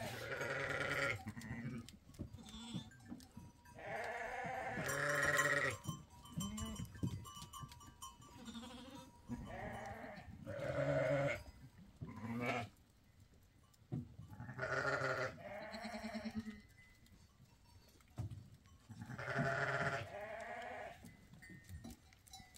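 Goats bleating, about six long, pitched calls spaced a few seconds apart.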